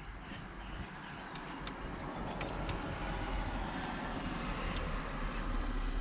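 Road vehicle noise, a low rumble that swells gradually louder, with a few light clicks over it.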